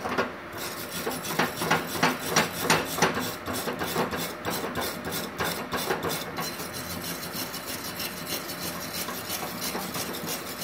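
Hand wire brush scrubbing a freshly MIG-welded aluminium plate in quick, rasping back-and-forth strokes, about three a second, cleaning the weld. The strokes are loudest in the first half.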